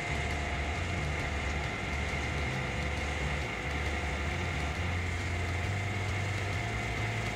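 Chainsaw on a rail-guided chainsaw mill running at a steady, even pitch while ripping a large oak log lengthwise into slabs.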